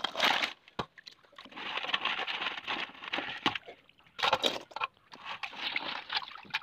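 Water sloshing and splashing in a steel basin as raw crab pieces are rinsed by hand, in uneven bursts with a few sharp clicks of shell.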